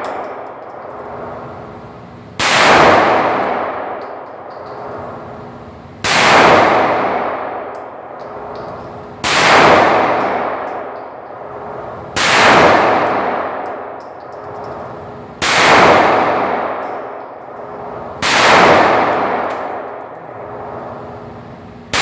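Glock 19 9mm pistol firing single shots at a slow, steady pace, six shots about three seconds apart with a seventh right at the end. Each shot is a sharp crack followed by a long ringing decay.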